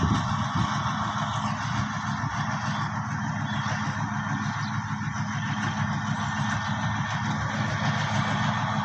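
Diesel-electric locomotive engine running with a steady low hum as the locomotive moves along the yard tracks, over a steady high hiss.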